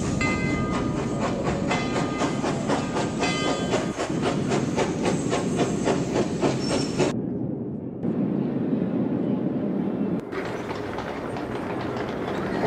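Railway passenger coaches rolling along: a rapid clicking clatter of steel wheels over rail joints above a steady rumble. About seven seconds in the clatter drops to a dull low rumble for about three seconds, then a fuller rumble comes back.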